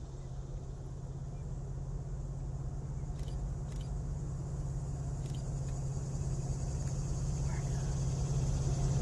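Diesel locomotive leading a coal train, approaching from a distance: a steady low engine drone that grows gradually louder.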